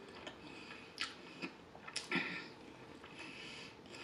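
Close-miked chewing of a mouthful of thick, bready square-pie pizza crust, soft and wet, with a few sharp mouth clicks around the middle.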